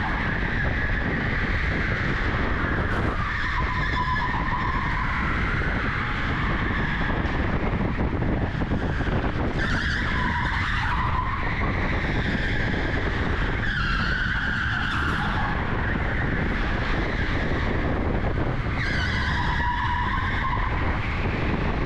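Electric go-kart driven hard, heard from onboard: a steady rumble of the kart rolling, with the tyres squealing briefly through the corners, four times a few seconds apart.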